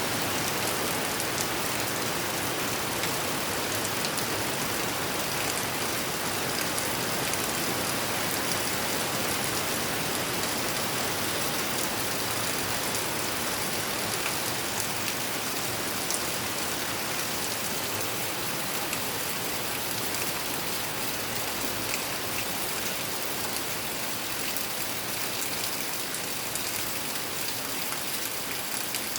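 Steady rain falling: an even hiss of rain with scattered drop ticks, easing slightly near the end.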